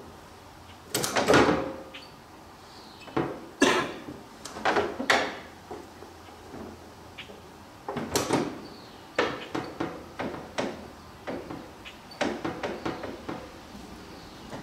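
Irregular metal clunks and rattles as parts at the dash and steering column of a John Deere 430 garden tractor are pushed and bent into place by hand. The loudest knocks come about one second and four seconds in.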